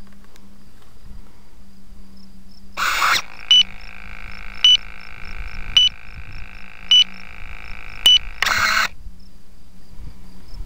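Airbrake servo on an RC flying wing driving the brake panel up in a short burst about three seconds in, then holding it with a steady buzz and a blip about once a second, and driving it back down in a second burst near the end. Under it runs a faint steady electrical hum with light regular ticking.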